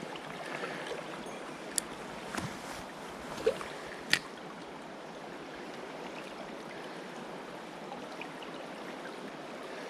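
River water running steadily, with a few short sharp clicks about two to four seconds in.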